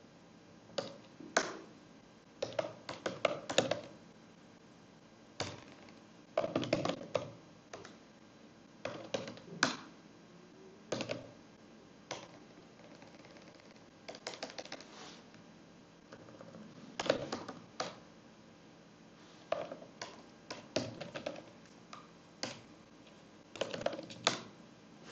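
Typing on a computer keyboard: short bursts of key clicks separated by pauses of a second or two, as commands are typed into a terminal.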